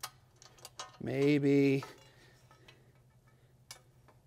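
A few scattered small metallic clicks and ticks as a stainless button-head bolt and washer are fitted and hand-threaded through an aluminum rail into a threaded crossbar, over a faint steady low hum. One short spoken word about a second in.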